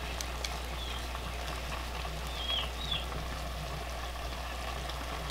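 Tuna, tomato and corn mixture sizzling softly in a clay cazuela over the fire, with a few short high bird chirps about half a second, two and a half and three seconds in.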